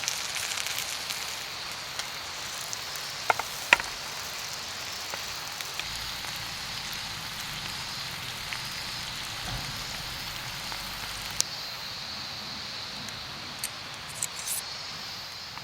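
Wood campfire crackling: a steady hiss broken by scattered sharp pops, two loud ones about three and a half seconds in and a cluster near the end.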